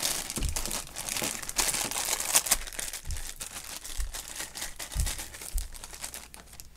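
Shiny foil blind-bag wrapper crinkling and tearing as it is pulled open by hand, densest in the first few seconds. A few soft low thumps of handling come in between.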